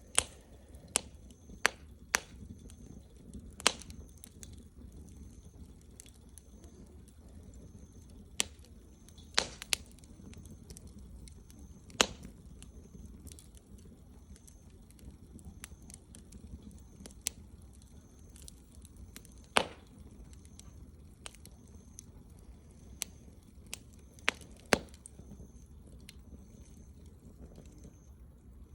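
Wood fire crackling: sharp, irregular pops and snaps, some loud and some faint, spaced a second or several apart over a low steady rumble.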